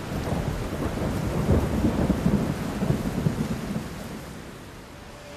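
Thunderstorm: steady heavy rain with thunder rumbling through it, dying down near the end.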